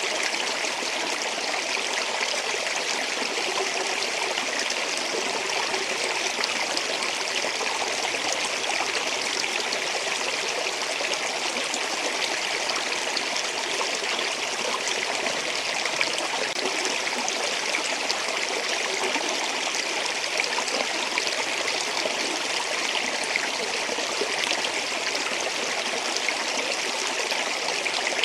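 Stream water flowing steadily over rocks, a continuous even rush and splash.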